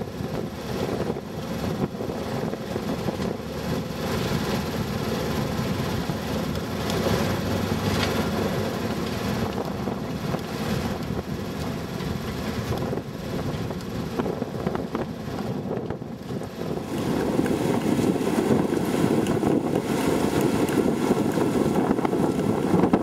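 Wind buffeting the microphone on a sailboat under way, over a steady low drone. The wind noise grows louder about seventeen seconds in.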